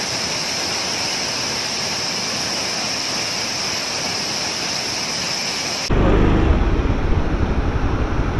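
Steady rushing of a large waterfall. About six seconds in it cuts to a motorcycle running at riding speed, a louder, low rumble with wind buffeting the microphone.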